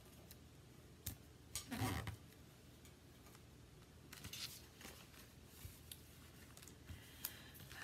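Quiet handling of paper and sticker sheets: a few brief, faint rustles and taps spread through a near-still room.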